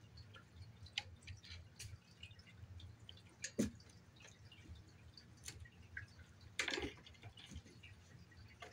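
Faint scattered ticks and soft knocks of a kitten playing on carpet, with one sharper thump a few seconds in and a brief scrabbling rustle later.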